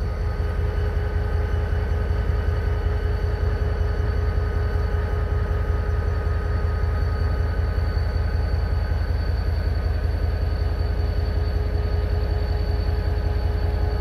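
Parked diesel-electric locomotives idling: a steady low rumble with a few steady humming tones over it.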